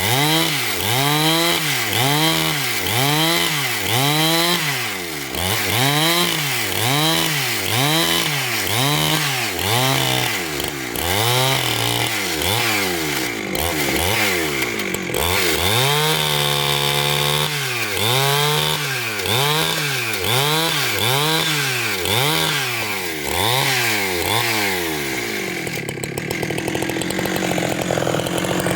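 Chainsaw cutting through a large log, its motor pitch rising and falling in a steady rhythm about one and a half times a second as the saw works the cut. It holds one pitch briefly near the middle and settles into a steadier, noisier run near the end.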